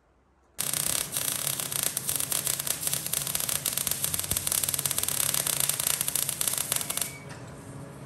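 MIG welder arc crackling and sputtering steadily as a bead is laid on a steel frame, starting suddenly and stopping about seven seconds in when the arc is broken.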